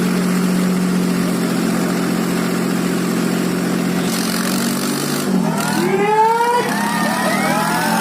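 Tractor diesel engines running hard at steady revs, held under load in a tractor tug-of-war. From about five and a half seconds in, several rising and falling calls break in over the engine drone.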